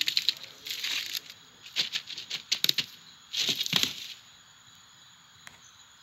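Animated-film sound effects with no dialogue or music: a run of small clicks, rattles and scratchy rustles, then a louder rushing burst a little over three seconds in, after which it falls quiet.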